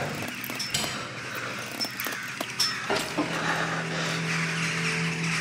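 Film soundtrack sound design: a few sharp knocks and clicks over a noisy bed, then a steady low drone sets in about three seconds in.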